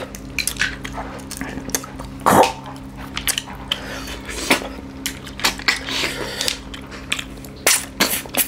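Close-up eating sounds of two people eating curry by hand: a quick string of wet lip smacks, sucking slurps and chewing clicks as snails are sucked from their shells, with a louder smack about two seconds in. A faint steady low hum runs underneath.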